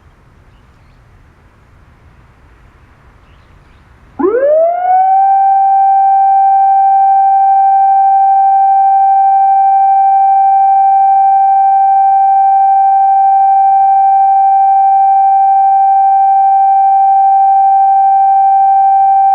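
Municipal disaster-prevention radio loudspeaker siren sounding the moment-of-silence signal for the Great East Japan Earthquake. About four seconds in, it sweeps quickly up in pitch and then holds one long, loud, steady tone.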